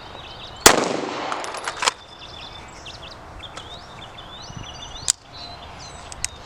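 A single loud gunshot about a second in, with a long ringing echo, then a sharp crack about five seconds in. Birds chirp in between.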